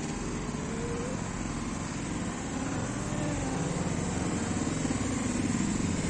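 Steady road traffic, with an engine hum that builds and grows louder in the second half as a vehicle comes closer.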